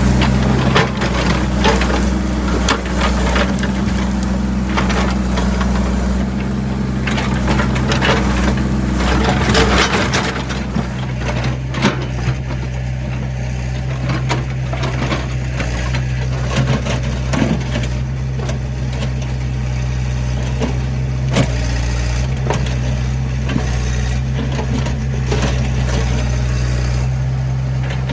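Diesel earthmoving machine running steadily while its bucket scrapes and crunches through a pile of rocks and wood, with frequent knocks and cracks. The knocks are busiest in the first ten seconds, then come more sparsely.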